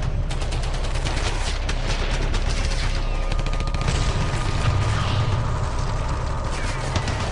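Rapid automatic gunfire from a firefight sound effect, a dense run of shots in the first three seconds, then thinning into a wash of further shots over a steady low rumble.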